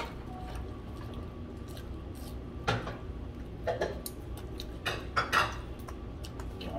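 Tableware clinking as people eat: chopsticks and ceramic dishes knocked together, a few sharp clinks between about three and five and a half seconds in, the loudest near the end of that run. A steady low room hum lies underneath.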